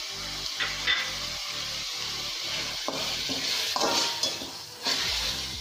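Onion, tomato and ground tomato-onion paste frying in oil in an aluminium kadai, a steady sizzle, with a metal spatula scraping against the pan as it is stirred in the second half.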